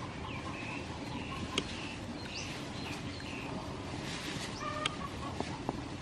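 Chickens calling in the background: short, high calls repeated irregularly, with a few sharp clicks.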